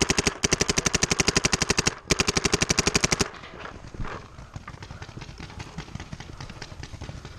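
Paintball marker firing rapid strings of shots, about a dozen a second, in three bursts with short breaks, then stopping about three seconds in.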